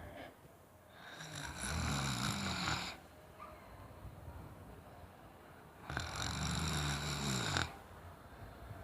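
A person snoring loudly: two long snores about four and a half seconds apart, each lasting under two seconds, with quieter breathing between them.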